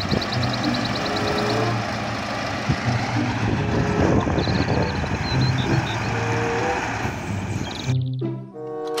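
Dump truck engine running as a steady rumble, with a fast run of ticking in the first second and a half. It stops abruptly about eight seconds in.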